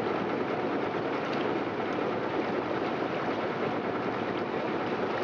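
Small motor boat under way, heard from aboard: a steady engine drone mixed with the rush of water, unchanging throughout.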